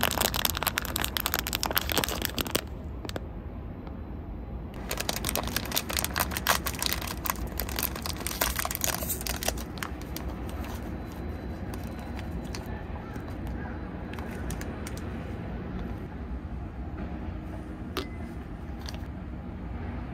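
Snack packaging crinkling and crackling as it is handled. The sound comes in two dense bouts, one at the start lasting a couple of seconds and one from about five to nine seconds in, with sparser crackles and clicks in between and after.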